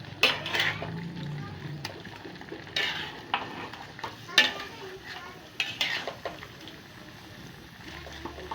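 Pork being stirred and fried in a pan: a utensil scraping and clanking against the pan at irregular intervals over a background of sizzling.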